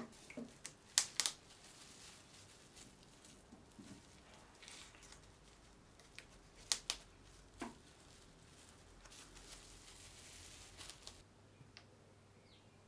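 Clear plastic wrap crinkling and rustling as a wooden clamping caul wrapped in it is handled and pressed onto a guitar headstock, with a handful of sharp clicks. It goes quieter near the end.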